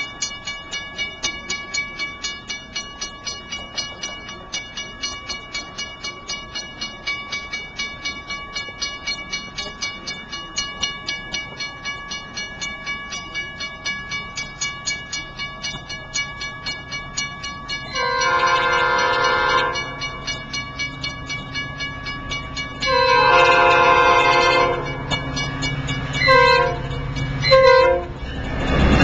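Grade-crossing warning bell ringing steadily, about two strokes a second, as a Metra F40C diesel locomotive approaches and sounds its horn in the crossing pattern: two long blasts, then two short ones. The locomotive's low rumble grows under the horn, and the train's rush begins as it reaches the crossing at the very end.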